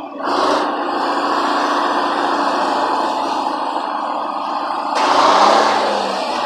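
Supercharged GM Detroit Diesel inline-six two-stroke diesel running steadily, swelling louder for about a second and a half about five seconds in.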